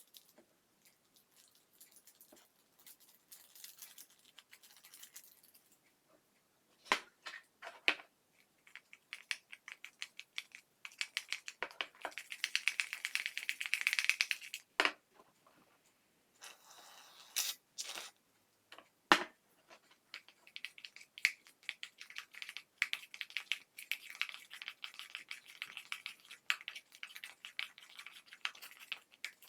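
Slime being worked by hand, giving a fast, irregular run of small sticky clicks and pops. It is sparse and faint at first, then denser and louder, with a few sharper snaps.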